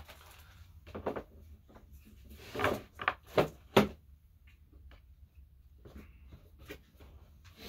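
Plastic CD cases being handled and sorted, a handful of short knocks and clicks with pauses between, most of them in the first half.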